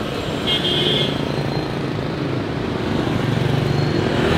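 Motor scooters passing close by on a city street, their small engines running with a steady hum of traffic. The engine sound swells as a bike passes near, about three seconds in. A brief high tone sounds about half a second in.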